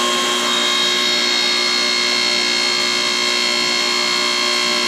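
Electric hydraulic pump unit of a homemade hydraulic forging press running steadily on its first start-up with fresh oil: an even whine of several steady high tones over a lower hum.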